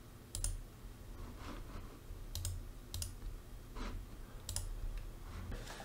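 About six separate clicks from a computer mouse and keyboard, roughly a second apart, each with a soft low thump.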